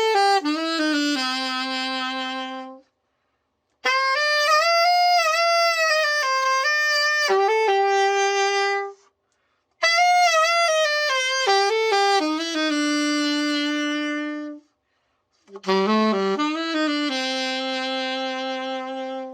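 Selmer Reference 54 alto saxophone played solo after its overhaul: short melodic phrases, each ending on a long held note, with a pause of about a second between them.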